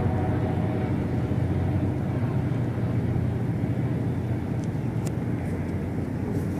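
Steady low rumbling drone in the sky, which the uploader takes for the mysterious "strange noise in the sky". A horn-like blaring tone fades out in the first half second.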